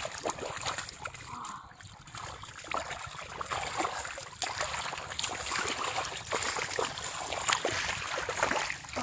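Shallow muddy water splashing and sloshing in irregular bursts as hands grab at a large fish struggling in it.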